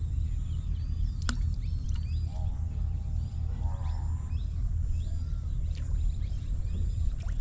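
Outdoor background: a steady low rumble with faint bird chirps scattered through it, a single sharp click about a second in, and a faint distant voice.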